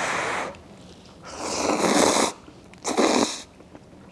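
A person blowing on hot cup ramen noodles held up on chopsticks and slurping them in: three breathy bursts, the middle one about a second long and the loudest.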